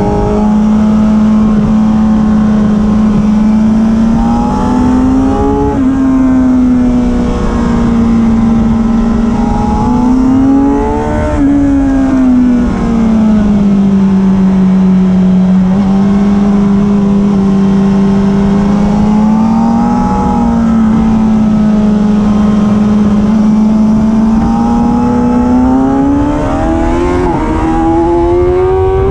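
Sport motorcycle engine heard from on board, running hard at track speed. Its pitch holds steady for long stretches and rises and falls several times, climbing near the end, over a steady rush of wind noise.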